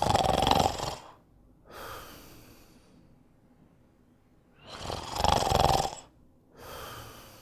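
Snoring: two slow breath cycles about five seconds apart, each a loud rattling snore lasting about a second, followed by a quieter, airy breath.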